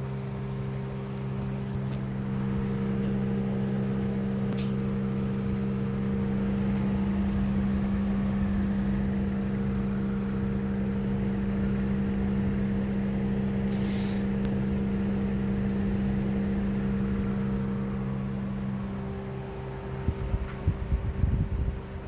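Panasonic RX50GHA air-conditioner outdoor unit running with a loud, steady drone of several fixed tones, the abnormal noise the unit has made since installation; one of the higher tones shifts slightly in pitch partway through. Near the end, irregular low buffeting bursts come over the drone.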